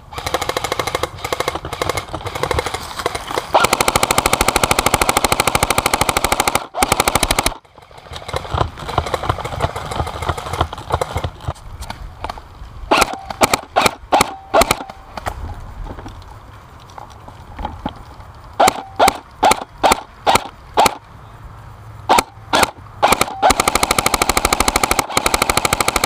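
Airsoft electric rifle firing: long full-auto bursts in the first seven seconds and again near the end, with runs of quick single shots, about three or four a second, in between.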